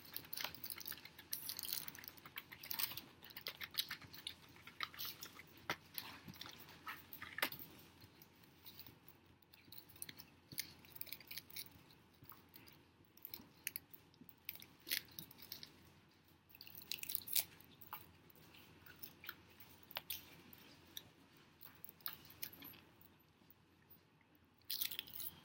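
Close-miked chewing of crisp seaweed, a run of small irregular crackles and crunches with brief pauses between bites.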